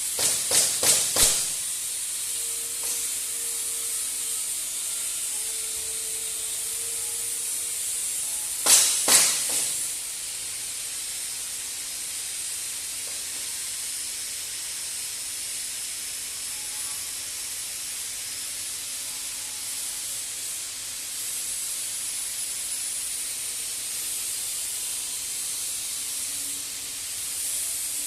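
TIG welding arc hissing steadily, with a quick run of four louder crackles near the start and three more about nine seconds in.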